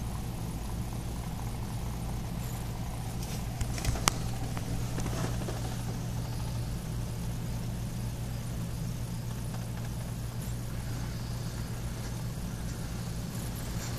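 Steady low hum, with a couple of sharp clicks about four seconds in.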